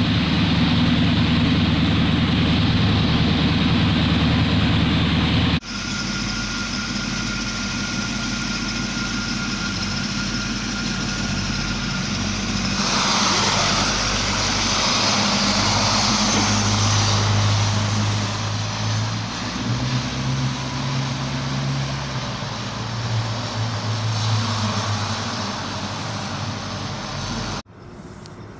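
Engine of a 1937 Chevrolet sedan street rod idling steadily at its exhaust. After an abrupt cut about five seconds in, the engine runs as the car drives, its note rising and falling with speed.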